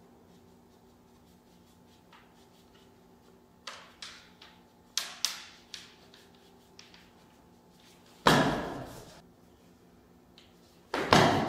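Bamboo kendo shinai knocking together: a few light taps and clicks, then two loud hard knocks about eight and eleven seconds in, each ringing on in the echoing hall.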